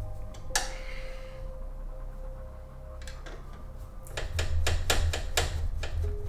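Clicks and knocks of a graphics-card support bracket being handled and fitted in a PC case: one sharp click about half a second in, then a quick run of clicks and knocks near the end.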